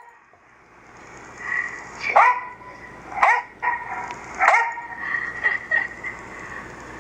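A dog barking: three short, sharp barks about a second apart, then a few softer yips.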